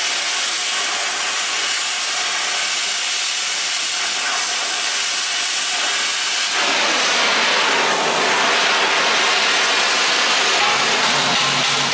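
Oxy-fuel cutting torch with a circle-cutter attachment hissing steadily as it cuts a 3-inch hole through steel plate. About halfway through, the hiss turns louder and fuller, with a low hum under it, as the lit torch comes off the plate.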